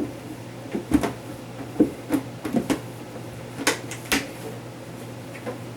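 Plastic refrigerator drawers being set and slid back into the fridge: a string of irregular knocks and clatters.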